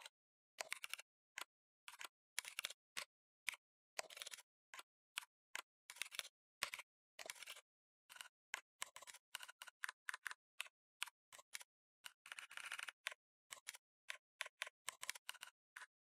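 Typing on a computer keyboard: quick, irregular runs of key clicks, with a denser flurry about twelve seconds in.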